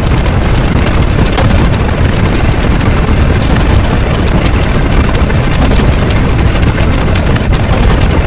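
A loud, dense rumbling noise with crackling clicks throughout, steady in level: a heavily distorted sound effect.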